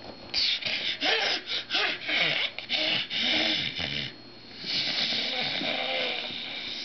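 Baby laughing and squealing in breathy bursts: a quick run of about ten short ones over the first four seconds, then after a brief pause one longer squeal.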